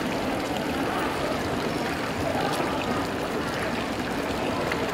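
Steady, even rushing street noise, like running water, with faint voices, as a Siemens Combino low-floor tram rolls slowly along the track towards the microphone.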